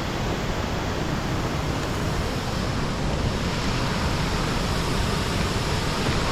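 Waterfall's water pouring onto rocks: a steady, continuous rush.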